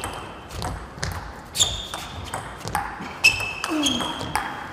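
Table tennis rally: the ball is hit back and forth by the rackets and bounces on the table, giving sharp ticks with a brief ringing about every half second. A short falling-pitched sound comes just before the end.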